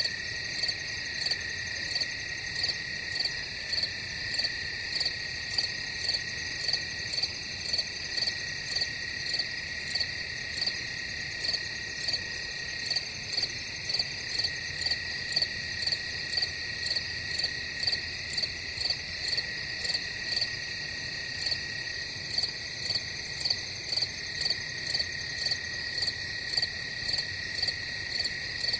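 Crickets chirping: a steady high trill under louder, evenly spaced chirps, a little under two a second.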